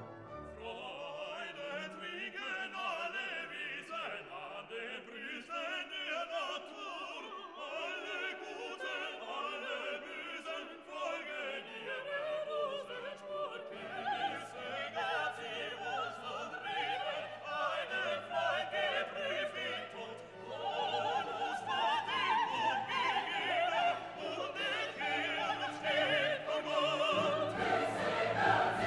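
Background music: operatic singing over an orchestra, growing louder about two-thirds of the way through.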